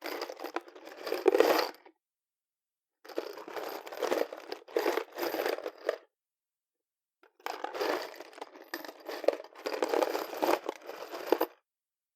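Loose metal screws rattling and clattering inside a cardboard box as it is shaken, in three bursts of about two to four seconds with clean silence between them.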